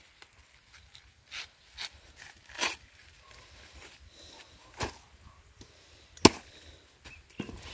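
A handful of short, sharp snaps and knocks at irregular intervals, the loudest a little after six seconds in.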